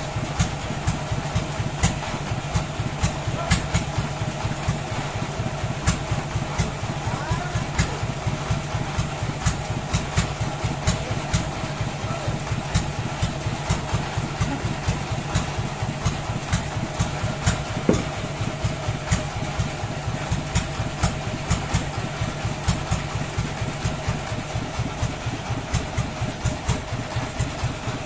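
An engine running steadily at an even speed, with a fast, regular pulsing beat under a constant hum.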